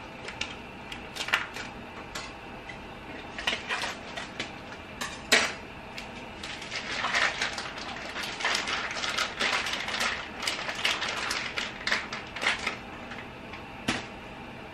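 Kitchen utensils and dishes being handled: scattered clicks and clinks, with a sharp knock about five seconds in and a busier stretch of clatter through the middle and later seconds.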